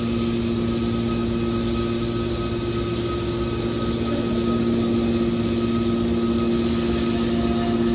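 Metal baling machine running with a steady, unchanging machine hum made of two held low tones.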